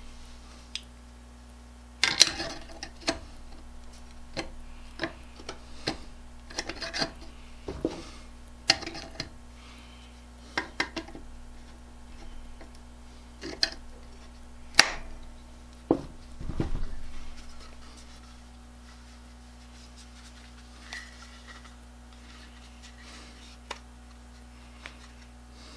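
Metal parts of a wooden transitional hand plane clinking and knocking against its wooden body and the bench as they are handled and fitted: a dozen or so sharp clicks and clanks, with one brief scraping rub about two-thirds of the way through, after which the clicks stop.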